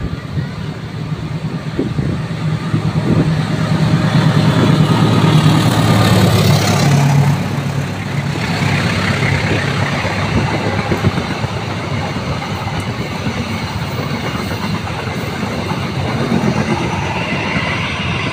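Diesel-hauled passenger train passing close by. The locomotive's engine hum builds to its loudest about four to seven seconds in, then the coaches' wheels roll steadily past on the rails.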